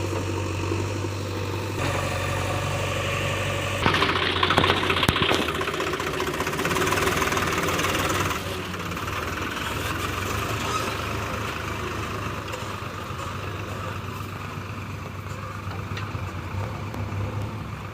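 Diesel engine of a JCB 3DX backhoe loader running with a steady low hum. About four seconds in it gets louder and harsher for around four seconds, with a few sharp knocks near the start of that stretch, then settles back.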